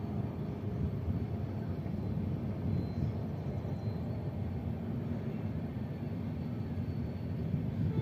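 Low, steady rumble of a train running on the tracks.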